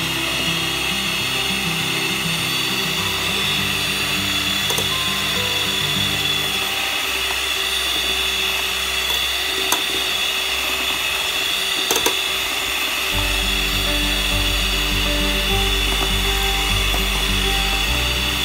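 Electric hand mixer running steadily with a constant high whine as it beats egg-and-sugar cake batter, over background music.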